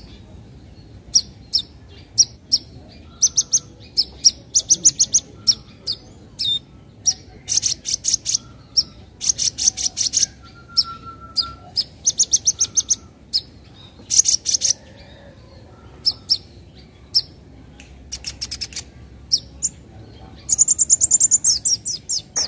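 Young sunbird (kolibri ninja) giving high, rapid chattering 'nyecret' calls in short bursts with gaps between them, the longest and loudest burst near the end.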